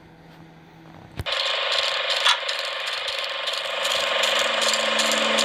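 A steady mechanical clatter, like a ratchet or gear train running, starts suddenly about a second in after a near-quiet opening.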